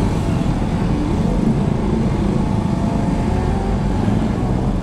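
Husqvarna Svartpilen 200's single-cylinder engine running in slow traffic, its note rising and falling a few times as the throttle is worked, over a steady low rumble of surrounding road traffic.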